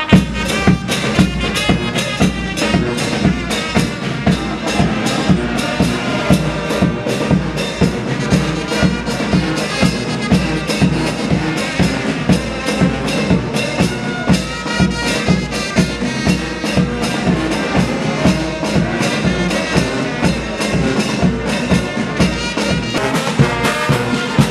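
Brass band playing, with a steady drum beat, starting suddenly at the beginning.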